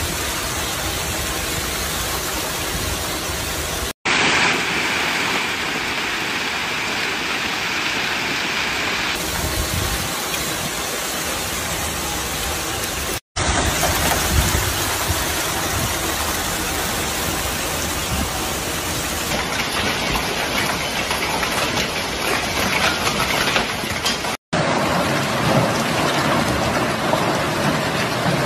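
A hailstorm: hail and heavy rain driven by strong wind, a dense, steady noise with no let-up. It is broken by three brief dropouts.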